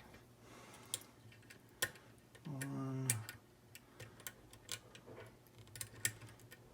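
Faint, scattered metallic clicks and ticks of a lock pick probing the pins of an ERA rim cylinder, a pin-tumbler lock, during single-pin picking.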